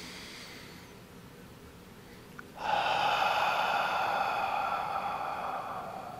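A man's long, audible exhale through the mouth with a breathy 'ha', part of slow qigong breathwork. It starts suddenly about two and a half seconds in and slowly fades.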